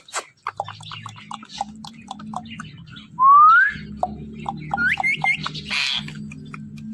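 Ringneck parrot making a run of quick clicks and chirps, then a loud rising whistle. About two seconds later come three short upswept whistles and a brief harsh squawk-like burst.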